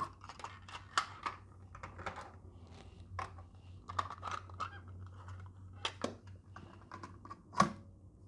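Hard plastic cassette tapes and their cases being handled: an uneven run of clicks, clacks and rattles as cases are opened, shut and the tapes moved about, with the sharpest clack near the end.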